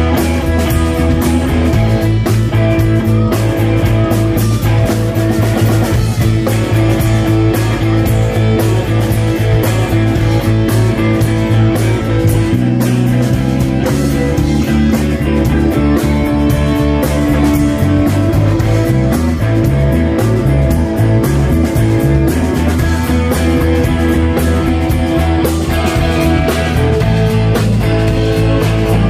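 Live rock band playing electric bass, electric guitar and drum kit at a steady loud level. A little past the middle, the bass line moves in a run of quick stepping notes.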